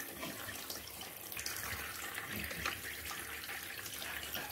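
Handheld shower head running, water spraying onto a wet cat's fur and the bathtub in a steady rush, a little louder in the middle.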